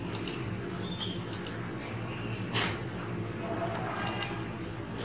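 A few sharp computer mouse clicks over a steady low room hum.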